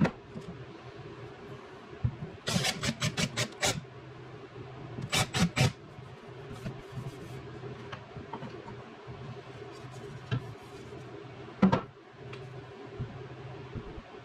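A drill scratching spots through the polyurethane finish on a drawer front, roughening it so dots of glue will hold: two short bursts of quick scratching strokes, about two and a half and five seconds in. A single knock near twelve seconds in, over a steady low hum.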